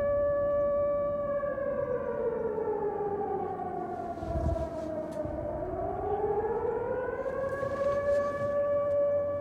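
A steady droning tone in the film's soundtrack slides slowly down in pitch from about a second in, bottoms out around the middle, and glides back up to its starting pitch near the end, like a slowed siren. A brief low thud comes about halfway through.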